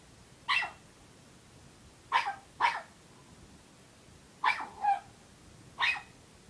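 A puppy barking six short, high yaps, singly and in quick pairs, the demand barking of a puppy that wants to be played with.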